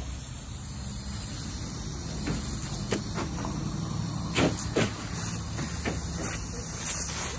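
Garden hose spraying water across a lawn: a steady hiss over a low rumble. Through the second half come a few short, sharp splashing knocks, the two loudest a little after halfway, as a boxer dog runs through the spray.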